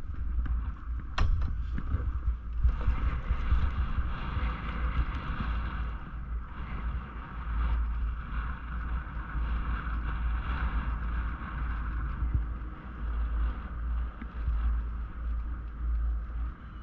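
Wind buffeting the microphone on a moving chairlift, a low rumbling noise, with a steady higher hum over it and a single sharp click about a second in.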